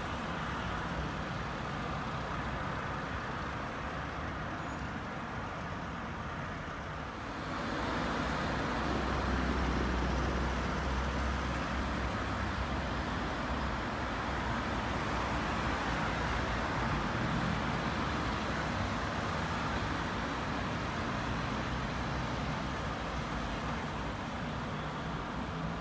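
City road traffic: a steady wash of vehicle and tyre noise. About seven seconds in it swells as a vehicle passes closer with a low rumble, and the traffic then stays a little louder.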